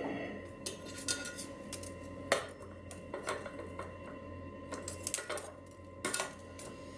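Forged steel mop strands clinking and rattling against each other and the metal base as they are handled, with irregular light knocks and a faint metallic ring; the sharpest knocks come about two seconds in and again near the end.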